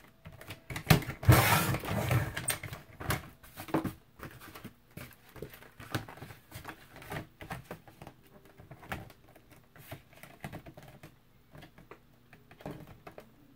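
Cereal-box cardboard being cut on a sliding paper trimmer: a loud scraping cut about a second in as the blade head runs along the rail, then scattered clicks and rustles as the card is handled and repositioned.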